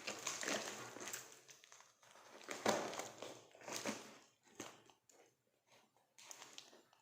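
Plastic packaging being crinkled and pulled at by hand in irregular bursts while it is opened without a cutter.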